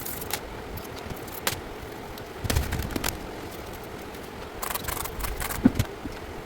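Small clicks and taps of laptop parts being handled, in clusters about two and a half seconds in and again near the end, with one louder knock, over a steady hiss.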